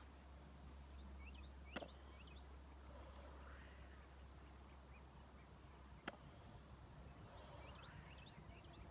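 Near-silent outdoor quiet with faint, scattered bird chirps in short groups, and two sharp clicks, one about two seconds in and one about six seconds in.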